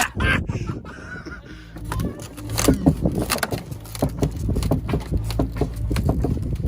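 Excavator engine running with a steady low hum while its bucket scrapes and crunches into the pickup's body, with many irregular cracks and clicks from about two and a half seconds in.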